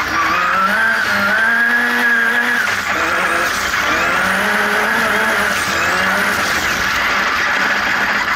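Turbocharged engine of a Formula Xtreme off-road race buggy, heard from inside the cockpit, revving hard with its pitch rising, holding and dropping several times as the driver works through the gears. It is running on wastegate spring pressure only, well down on its boost-controlled power.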